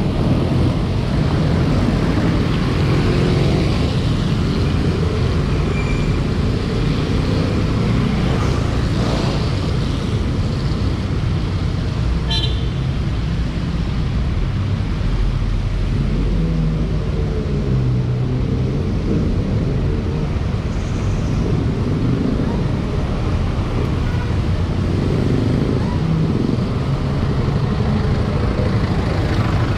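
City street traffic heard from a moving bicycle: jeepney, car and motorcycle engines running close alongside, over a steady low rumble.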